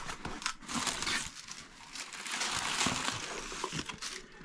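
Parcel packaging handled and unwrapped by hand: irregular rustling with many small clicks and crackles.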